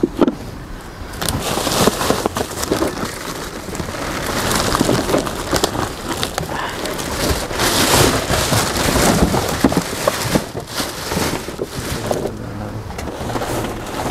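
Rustling and clattering of cardboard boxes and plastic packaging being rummaged through, a dense run of crackles and knocks that swells and ebbs.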